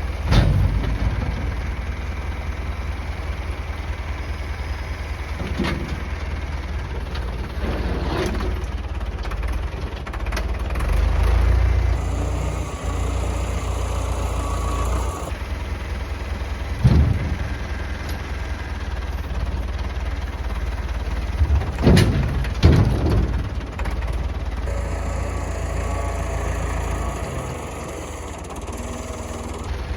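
Tractor engine running steadily, with several loud clunks and knocks scattered through it, the loudest near the start and two close together later on.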